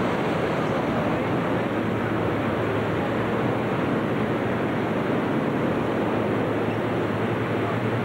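A steady, unbroken wash of noise with a low hum underneath, from many hot-air balloon inflation fans running at once as envelopes are filled in the hangar.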